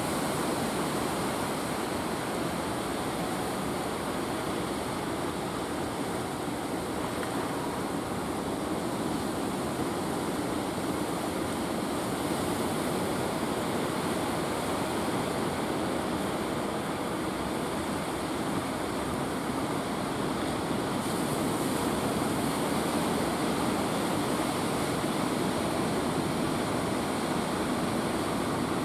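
Sea surf washing onto the beach: a steady rush of breaking waves, a little louder in the later part.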